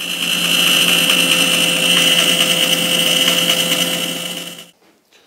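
Bandsaw running and cutting a notch into a plywood panel fed against the fence: a loud, steady machine sound with a hiss over it, which stops shortly before the end.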